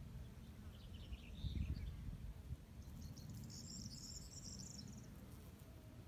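Meadow ambience: a high insect trill lasts about two seconds in the middle, after a few faint higher chirps, over a low steady rumble.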